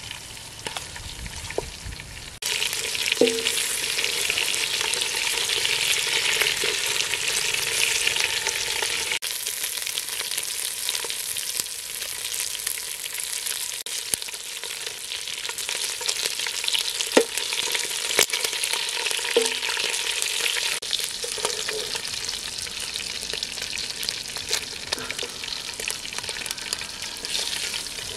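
Frogs frying and sizzling in oil in a metal pot while a wooden spatula stirs them, with a few sharp clicks of the spatula against the pot. The sizzle gets louder about two seconds in.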